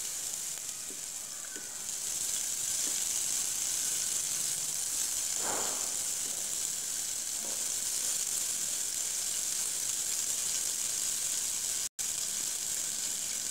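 Chopped onion frying in hot oil with whole spices in a pressure cooker: a steady sizzle that cuts out for an instant near the end.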